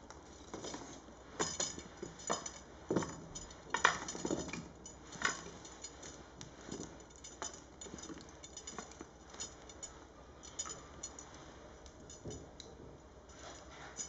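Wood fire crackling in an open three-sided hearth fireplace: irregular sharp pops and clicks over a low hiss, the loudest about four seconds in.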